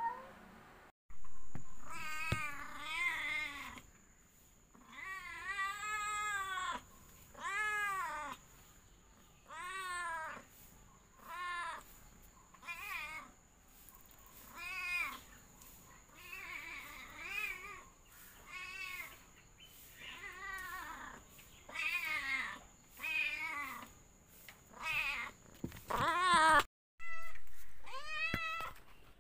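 A domestic cat meowing over and over, one meow every second or two, each call rising and then falling in pitch, some of them drawn out and wavering.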